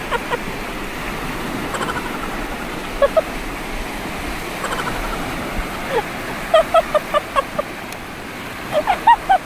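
Small lake waves breaking and washing steadily over a pebble shore, with brief high-pitched calls in the background several times, mostly in the second half.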